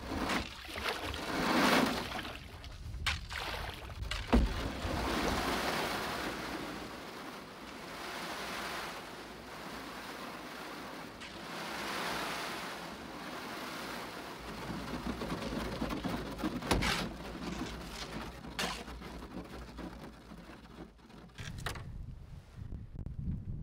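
Canoe hull pushing through thin skim ice about a sixteenth of an inch thick: long swells of crunching, scraping ice along the hull, with a few sharp cracks and knocks.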